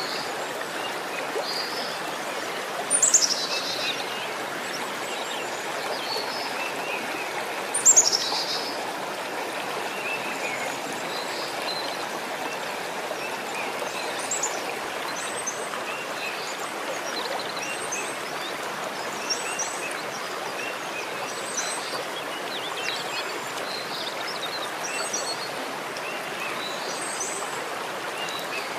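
A steady rush of running water, with small birds chirping throughout. Two louder high calls sweep downward, about three and eight seconds in.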